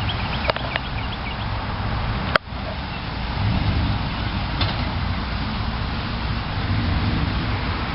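Pickup truck driving: steady engine and road noise, with one sharp click a little over two seconds in.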